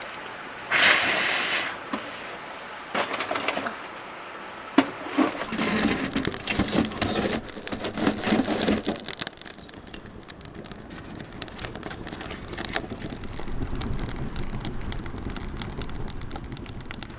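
Breath blown into a small wood stove's firebox for about a second to fan the fire, then wood knocking and rattling as a split log is pushed in. After that the fire burns in the stove with a low rumble and fine crackling.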